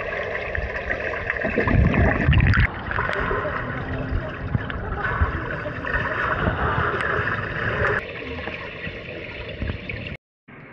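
Muffled underwater sound of a swimming pool heard from a submerged camera: water churning and bubbling, loudest about two seconds in. It cuts off suddenly near the end.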